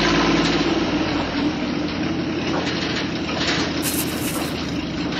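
Small electric motors and gears of a toy remote-control excavator whirring steadily as it digs and swings a bucket of sand.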